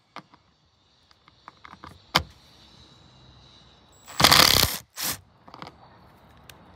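Drill with a T30 Torx bit backing out roof-rack screws: scattered small clicks of the bit on the screw, then two short bursts of the drill about four seconds in.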